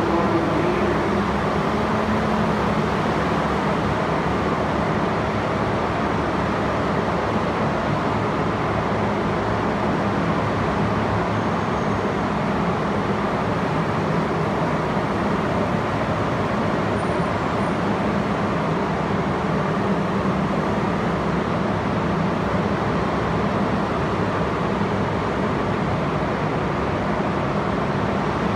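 Steady drone and low hum of a stainless-steel R32 New York subway train standing at the platform with its doors open, its onboard equipment running.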